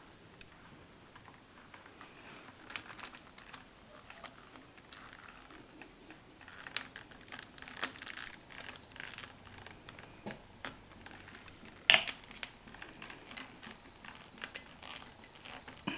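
Hand tools and small metal parts being handled at a workbench: light scattered clicks, taps and rustling, with one sharper click about twelve seconds in.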